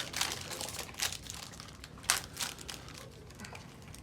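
Foil booster pack wrapper crinkling and tearing as it is opened, in a series of sharp crackles, the loudest about two seconds in.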